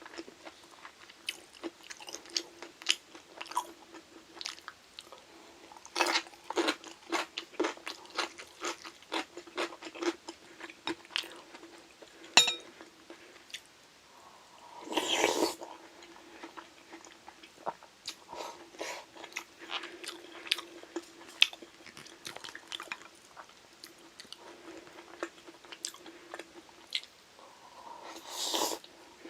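Close-miked crunchy chewing and biting of Korean side dishes such as kimchi, a dense run of short crisp crunches over a faint steady hum. There is one sharp loud click about halfway through and two brief louder noisy rushes, one a little past halfway and one near the end.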